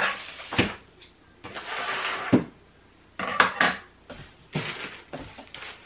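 Packing being handled inside a cardboard box: several sharp knocks and clatters of items against the cardboard, with a rustle of plastic wrapping about two seconds in.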